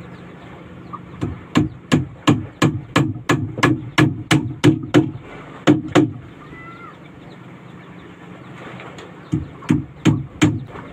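Hammer driving nails into the plywood side of a small wooden boat. A quick run of about a dozen blows at roughly three a second, two more, then after a pause four more near the end.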